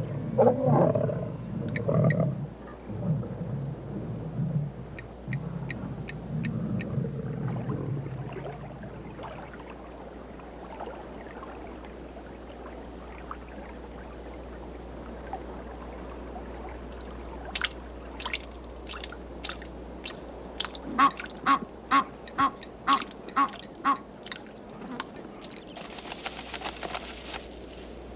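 Lions growling low for the first several seconds. After a quieter stretch, geese call in a quick run of short repeated honks, about two a second, and a brief noisy rush follows near the end.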